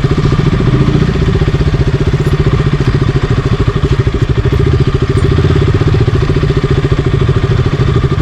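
Single-cylinder 200 cc motorcycle engine running at low, steady revs with an even throbbing beat.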